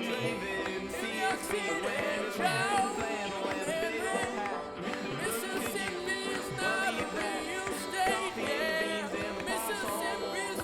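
Music with a voice singing a melody over instruments.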